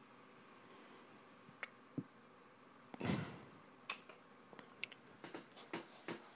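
Quiet room with a few faint, scattered clicks and ticks, and a short rustle about three seconds in.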